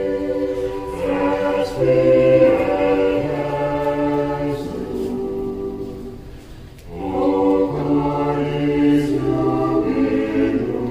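A choir singing a Latin hymn in several parts, holding long notes; one phrase fades out a little past the middle and the next begins after a short breath.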